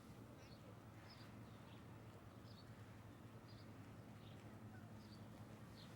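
Near silence: small birds chirping faintly every second or so over a steady low hum.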